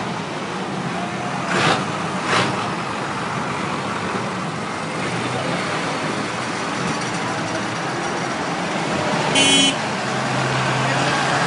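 Tractor engines running as tractors move off, with a short horn toot about nine and a half seconds in. Two short, sharp sounds come about two seconds in.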